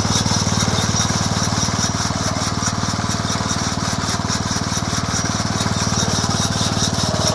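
A 3.5-horsepower small gas engine running steadily, driving a one-third-scale baler with its plunger, hay pickup and auger working.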